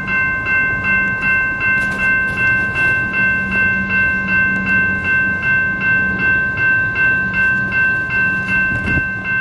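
Level crossing warning bells ringing in rapid, even strikes, about two and a half a second, while the boom gates are down. Under them is the low hum and rumble of a Comeng electric suburban train rolling slowly into the station.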